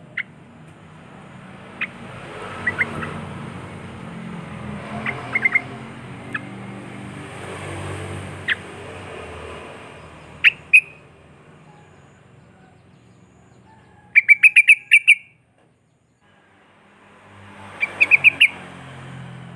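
Sooty-headed bulbul (trucuk) calling: scattered short, sharp chirps, then a quick run of notes about two-thirds of the way in and another cluster near the end, over a low background rumble.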